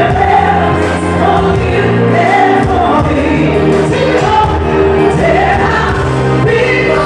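A woman singing soul live into a handheld microphone, her amplified voice over music accompaniment.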